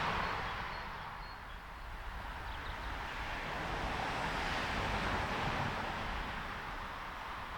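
Road traffic passing: the tyre hiss of a vehicle that has just gone by fades away, then another vehicle's hiss swells and fades.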